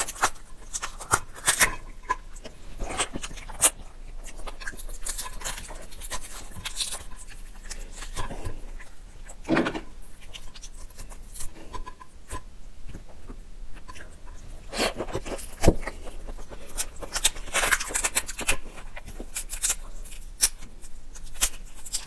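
Shell of a large cooked prawn cracking and crinkling as it is peeled by hand: irregular crackles and snaps, a few of them louder.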